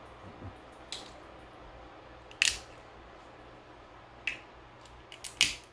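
Cooked crab shell cracking and snapping in the hands as the meat is picked out: a few sharp cracks, the loudest about two and a half seconds in, and a quick run of three near the end.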